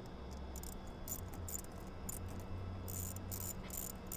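Hose clamps on an intake coupler being tightened with a hand driver: faint, irregular high-pitched clicking from the clamp screw turning, several clicks a second.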